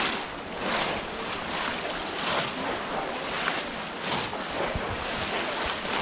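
Shallow water sloshing and splashing as many people wade through it and plunge bamboo polo fish traps, with a louder splashy surge every second or two.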